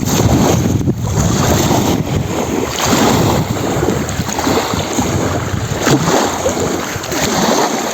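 Lake waves washing onto the shore in a steady surge, with wind buffeting the microphone.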